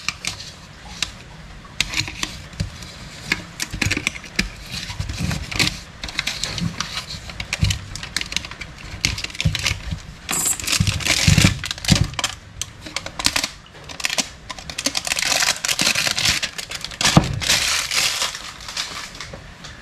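Plastic packaging crinkling and rustling, with scattered light clicks and clinks of small metal parts being handled, as a new piston kit is unpacked.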